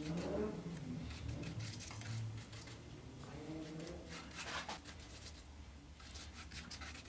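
A small paintbrush scrubbing polyester resin onto the rough fibreglass top of a skeg: a run of short, scratchy strokes.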